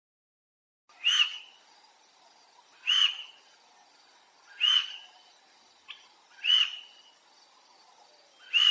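A short, high-pitched animal call, a single note that rises and falls, repeated five times about every two seconds.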